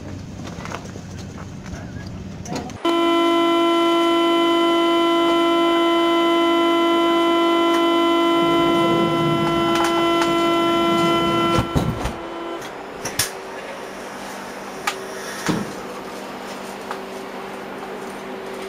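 Wind and platform noise, then a loud, steady electronic warning tone, like a TGV's door-closing signal, that starts suddenly and holds for nearly ten seconds. It cuts off with a short clatter of knocks, and a few faint clicks follow.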